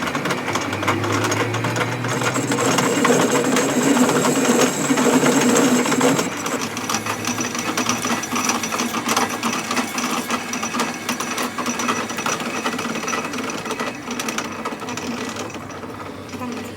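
Continuous rapid mechanical rattling from metalworking on the spindle, changing character about six seconds in and easing off near the end.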